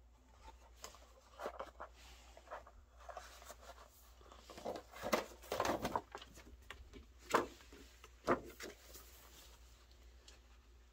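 Rustling and tapping of a CD album's card pages and clear plastic sheet as the disc and pages are handled, busiest in the middle, with two sharp clicks about a second apart.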